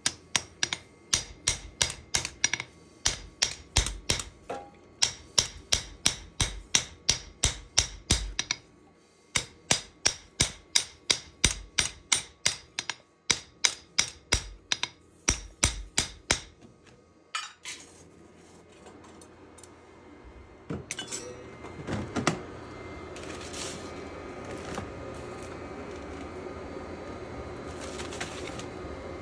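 Metal hammer blows forging a steel knife blade: sharp strikes at about four a second, in runs broken by short pauses. They stop about 17 seconds in, leaving a few metal clinks over a steady workshop hum.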